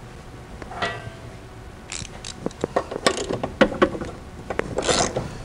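A hand ratchet and 5/8-inch socket clinking and knocking as they are fitted onto the lawn mower's blade bolt, with a short run of quick ratchet clicks near the end.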